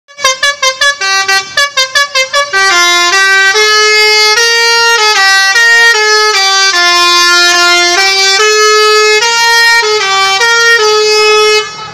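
Basuri multi-tone musical bus horn (telolet) playing a melody, very loud and shrill: a run of short quick notes, about four a second, then longer held notes stepping up and down in pitch, cutting off near the end.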